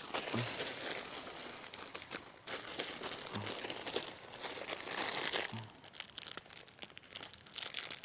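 Close crinkling and rustling handling noise, dense and crackly for about the first five and a half seconds, then quieter.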